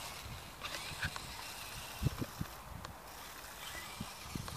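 Small electric motor of a 1:18 RC rock crawler whining faintly in short bursts as the car drives over sand, against a steady outdoor hiss with a few low thumps of wind on the microphone about two seconds in.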